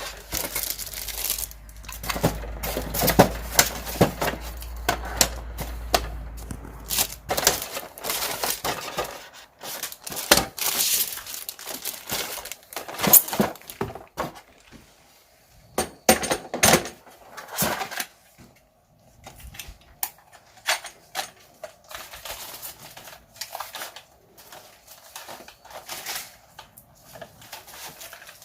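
Handling of a WELL MB08 airsoft rifle and its packaging: irregular clicks, knocks and clatter of hard parts with rustling of wrapping. A low rumble underlies the first several seconds.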